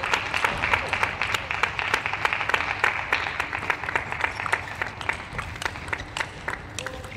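Crowd applause with many individual hand claps, gradually dying away.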